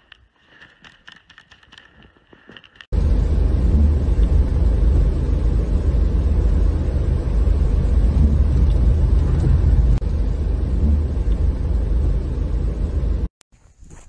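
After a few seconds of faint scattered clicks, a loud steady low rumble starts abruptly: the inside of a car driving through a snowstorm. It cuts off suddenly just before the end.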